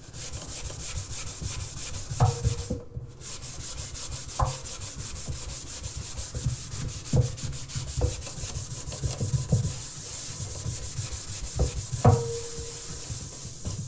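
Hard red Scotch-Brite scrub pad rubbed fast back and forth on a stainless steel sink bowl, scouring off black acid stains, with a short break about three seconds in. A few knocks on the bowl make the steel ring briefly.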